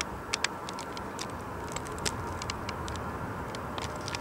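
Four-engine Airbus A340's jet engines at takeoff power, heard from far off as a steady low rumble. Many short sharp clicks are scattered irregularly over it.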